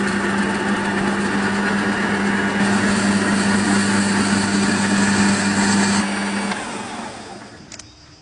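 A small electric motor running steadily with a low hum and a whir, then switched off about six seconds in and winding down to a stop.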